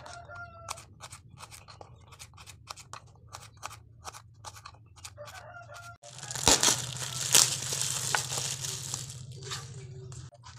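Thin plastic bag crinkling and rustling as hands dig raw chicken wings out of it. The crinkling is loud and dense for about four seconds from about six seconds in. Before that come lighter scattered rustles and clicks of handling at the bowl.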